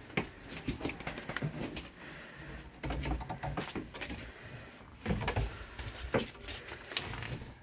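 Footsteps climbing steep wooden stair treads into a shed loft, with irregular knocks and clicks and a few heavier thumps about three seconds in and again around five to six seconds, in a small, boxy wooden space.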